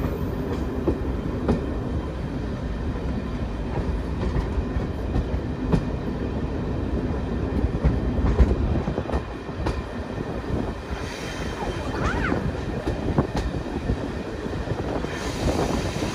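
Inside a railway passenger coach on the move: a steady low rumble of the running gear, with scattered clicks and knocks as the wheels cross the rail joints.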